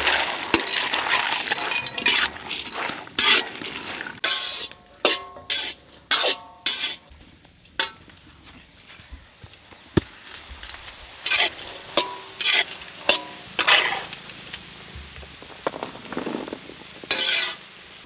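Cashews and black raisins frying in ghee in a large iron kadai, sizzling while a metal ladle stirs and scrapes through them. The ladle knocks and scrapes against the pan many times, several strokes ringing briefly.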